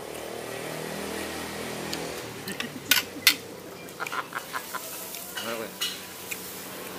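Nasi goreng rendang sizzling in a wok as it is stir-fried with a metal spatula, the gravy just added. Two loud clanks of the spatula against the wok about three seconds in, then a quick run of lighter taps.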